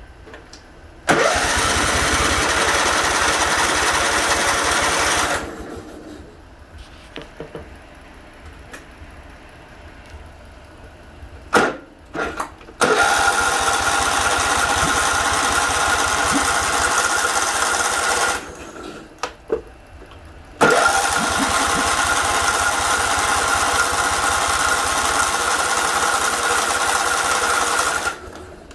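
Kohler CV20S V-twin engine being cranked over by its electric starter three times, each a steady run with a high starter whine that cuts off without the engine catching: it won't start. A few sharp clicks come just before the second attempt.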